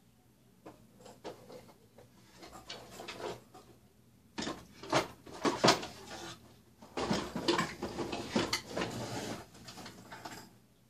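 Objects being handled and rummaged through close to the microphone: irregular knocks, clatters and rustling in uneven bursts, loudest in the middle and second half.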